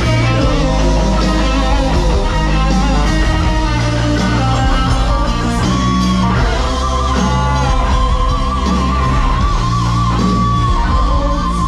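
Rock band playing electric guitar music over a heavy bass. In the second half a long, wavering high note is held over the band.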